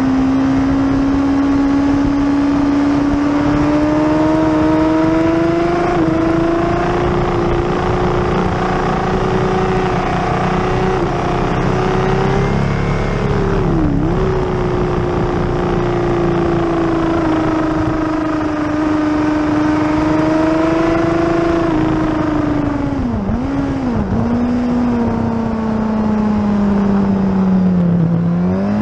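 Onboard sound of a Suzuki race motorcycle's engine running at high revs with wind rush. The pitch climbs slowly, dips sharply and recovers about halfway and twice more a little later, then sinks steadily before rising again at the very end.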